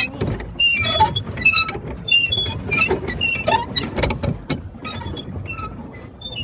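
Pedal boat's drive mechanism squeaking in a steady rhythm as it is pedalled, about two high squeaks a second, growing weaker near the end.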